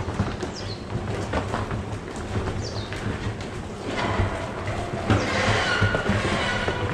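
Holstein dairy cows shuffling at a feed fence, with irregular knocks and clatter of hooves on the barn floor over a steady low machine hum.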